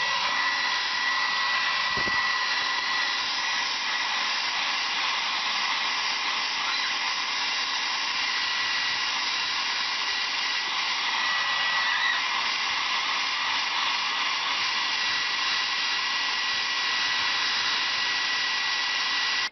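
Hand-held hair dryer running steadily, a high fan whine over the rush of air, blowing on a wet owl's feathers.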